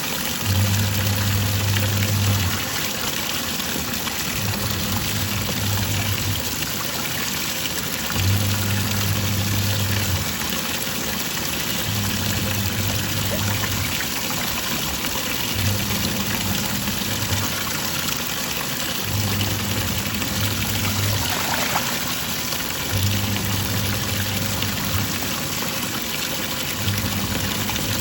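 Twin-tub washing machine's wash tub agitating with water sloshing: the motor hums for about two seconds, pauses, and starts again, roughly every four seconds, as the pulsator swings back and forth.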